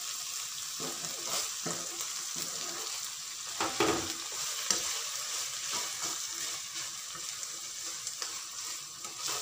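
Minced beef (qeema) sizzling in ghee in a non-stick wok while a spatula stirs and scrapes it, turning sliced raw potatoes into the mince. The sizzle is steady, broken by repeated scraping strokes, with one louder clatter about four seconds in.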